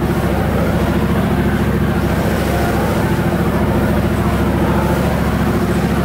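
Boat's engine running steadily at cruising speed, a loud constant low drone, with an even hiss of wind and water over it.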